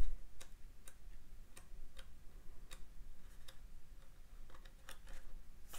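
Pages of a paperback film booklet being leafed through by hand. Each page makes a faint light click as it flips past, about two a second.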